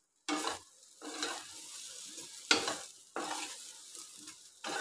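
Spatula stirring chopped okra in a metal kadai, several short scraping strokes against the pan, over a faint sizzle of the okra frying on a low flame.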